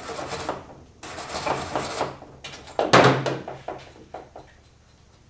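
Rough scraping or rubbing strokes on metal bodywork, then a sharp knock about three seconds in, a few lighter taps, and the sounds die away.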